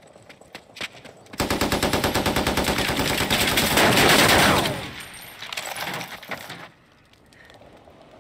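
Automatic gunfire: a few single shots, then a long burst of rapid machine-gun fire lasting about three seconds. A second, shorter burst follows about a second later, and the firing stops well before the end.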